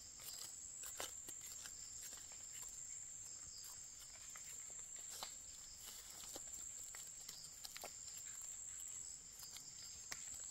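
Faint scraping and light clicks of a small knife and fingers digging in soil and dry leaf litter to lift young amanita mushrooms, over a steady high insect drone.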